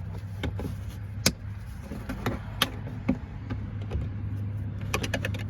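Plastic zip tie being pulled through its ratchet and tightened on a plastic body clip, with scattered sharp clicks and a quick run of clicks near the end, over a steady low hum.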